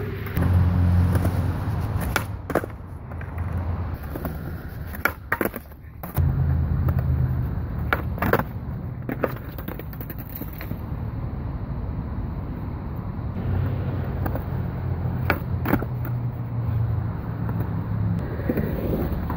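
Skateboard wheels rolling on a concrete bank with a low rumble, broken several times by sharp clacks of the board's tail and deck striking the concrete as kickflips are tried.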